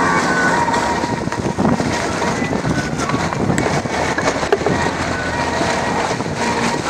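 Lada Niva (VAZ-2121) off-roaders driving along a muddy rutted track, engines running under load with tyre and mud noise, and wind buffeting the microphone.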